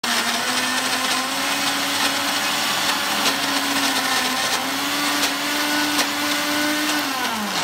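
Electric mixer grinder (mixie) motor running at speed, grinding raw chicken, green chilli, soaked bread and egg into a paste, a steady whine with a brief dip about halfway. Near the end it is switched off and winds down, the whine falling in pitch.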